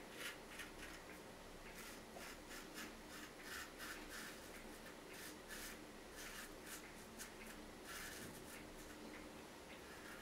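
Straight razor scraping through lather and stubble in a quick run of short, faint strokes on the first pass of a wet shave.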